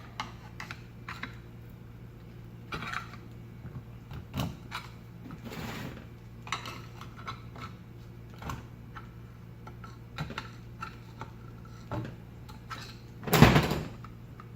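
Scattered light metal clicks and scrapes of a tool prying an electric fan motor's stator out of its housing, with one louder knock near the end.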